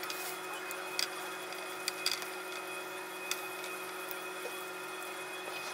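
A steady machine hum made of several fixed tones, with a few light clicks and taps about one, two and three seconds in as chocolates are set down and handled on a tiered display stand.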